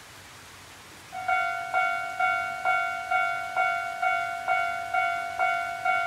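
Japanese railway level-crossing warning bell starting about a second in and ringing in repeated strikes, roughly two a second, the signal that a train is approaching. Before it there is only a steady background hiss.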